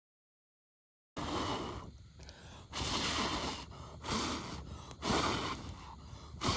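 Dead silence for about the first second, then about five short bursts of a person breathing out hard.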